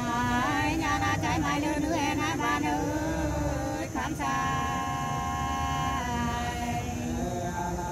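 Unaccompanied Nùng sli folk singing: one voice winds through wavering, ornamented phrases, then holds a long steady note from about four seconds in, with a brief click just before it.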